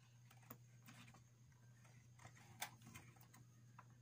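Near silence: a steady low hum with a few faint clicks and taps from handling the RAM module at the motherboard, the sharpest about two and a half seconds in.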